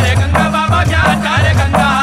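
Chhattisgarhi Panthi dance music: a drum beating about twice a second under jingling cymbal-like percussion and a wavering melody.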